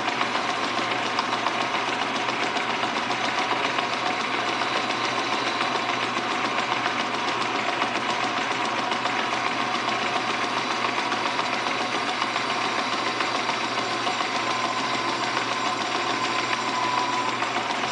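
Metal lathe running steadily with a whine, its tool bit cutting a metal pulley blank held in the chuck. The whine dips slightly in pitch near the end.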